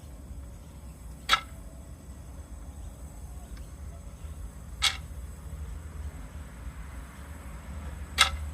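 Natural gas meter making a short, sharp click three times, about every three and a half seconds, over a low steady hum. The owner calls it a strange sound and does not know the cause.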